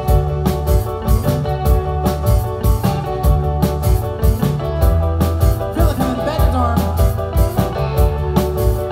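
Live band playing a pop-rock song: a drum kit keeps a steady beat under sustained bass and chords, with singing over it around the middle.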